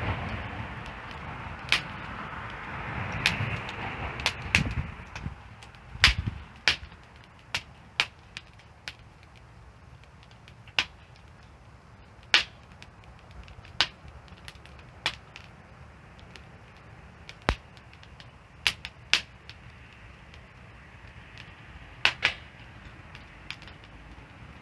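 Wood fire crackling, with irregular sharp pops every second or so. A hissing rush in the first few seconds fades out.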